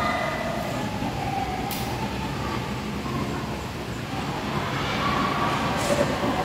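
Steady background hum of a room, with faint distant voices and two brief light clicks.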